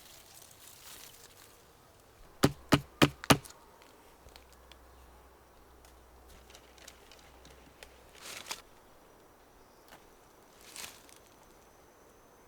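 Four sharp knocks in quick succession, about a second long in all, then faint scattered clicks and two brief rustles. A faint steady high tone comes in near the end.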